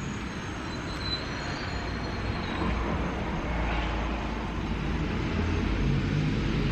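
Vehicle noise: a steady, noisy rumble, heavy in the low end, growing gradually louder.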